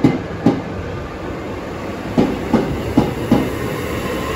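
Southeastern Class 465 electric multiple unit moving slowly through the station, its wheels clacking over rail joints in quick knocks, two near the start and a run of four more past the middle, over a steady rumble.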